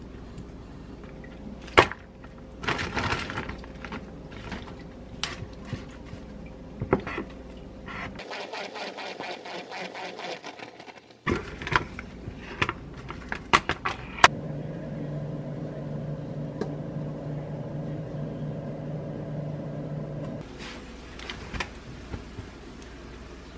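Kitchen food-prep sounds: a wooden spatula scraping and knocking against a glass mixing bowl as a soy-based chicken-wing sauce is stirred. Then a plastic salad spinner lid clicks and knocks into place, followed by a steady mechanical whir lasting about six seconds.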